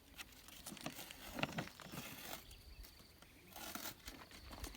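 Faint crinkling and rustling of toy packaging being handled and opened, with scattered small clicks and taps. There are two longer rustles, about two seconds in and near the end.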